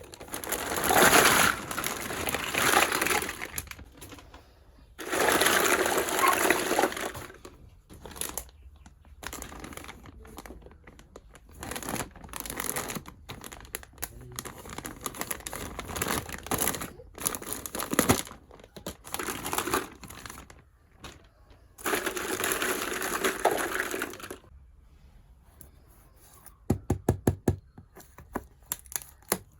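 Plastic packaging being handled and crinkled in several drawn-out rustling bursts, with scattered small clicks and taps of plastic pieces. Near the end comes a quick run of about ten sharp clicks.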